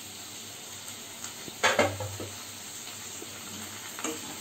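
Papaya pieces sizzling steadily in mustard oil in a nonstick kadai, uncovered after two minutes under the lid. A single loud clank of the pan lid comes about a second and a half in, and a spatula gives a few light knocks against the pan near the end.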